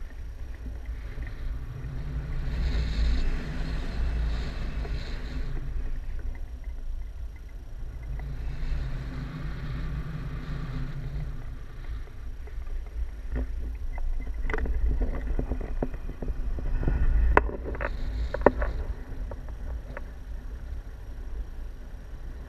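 Wind rushing over the microphone of a pole-mounted action camera during a tandem paraglider flight: a low, steady buffeting that swells twice in the first half. In the second half comes a run of clicks and knocks, the sharpest two near the three-quarter mark.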